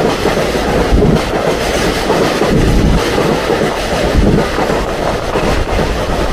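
A Taroko Express electric tilting train runs through the station at speed, right beside the platform. Its wheels on the rails make a loud, steady rumble with a few brief knocks.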